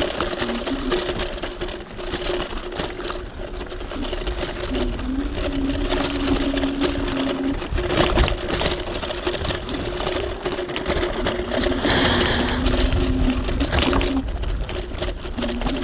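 TRBK-M2 electric hyperscooter's motor whining steadily while riding, with a second, lower whine that comes in and drops out several times as the throttle changes, over rumbling tyre and wind noise with frequent small knocks from the rough trail.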